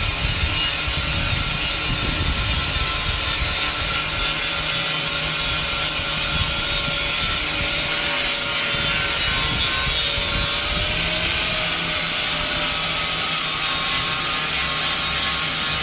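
Angle grinder with a flap disc running continuously and grinding rust and paint off an old iron frame. A steady, loud abrasive grinding with a constant motor whine.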